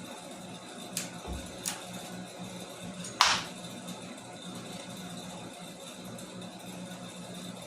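Metal parts being handled: two light clicks about a second in, then one louder clunk a little after three seconds, over a steady low hum.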